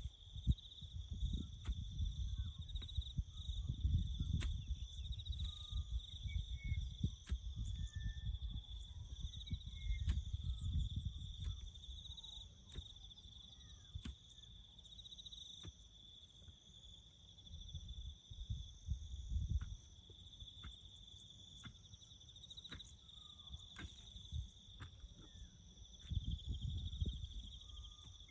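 Crickets chirping in a steady high trill throughout. Under it come surges of low rumbling noise, heaviest in the first half and again near the end, with scattered sharp clicks.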